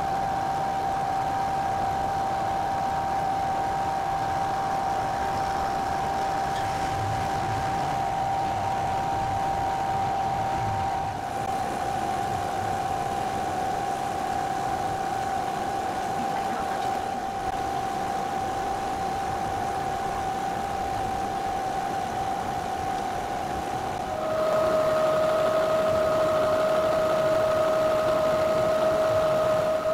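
Milling machine running with an end mill facing aluminum stock: a steady whine over cutting noise. About 24 seconds in, the whine drops in pitch and gets a little louder.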